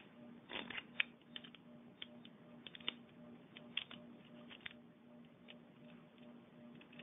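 Faint, irregular light clicks and handling noise from a Nexbelt ratchet belt buckle being worked by hand as the strap is fed in and adjusted, with a steady low hum underneath.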